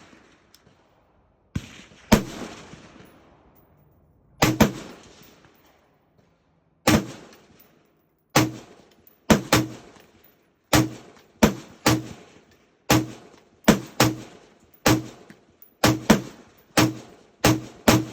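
Anderson Manufacturing AR-15 rifle fired in single semi-automatic shots. The shots come a second or more apart at first, then quicken to about two a second from about halfway through, with a short echo after each.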